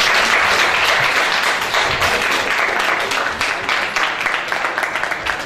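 Small audience applauding, the clapping slowly thinning out toward the end.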